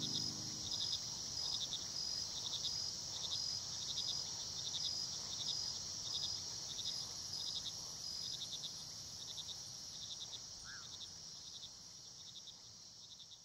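Crickets chirping in an even, repeating rhythm of short high chirps, slowly fading out toward the end.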